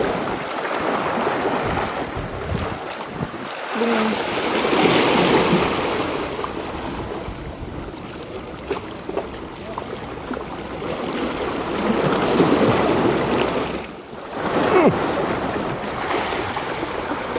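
Sea waves washing against the rocks of a breakwater, rising and falling in surges, with wind buffeting the microphone.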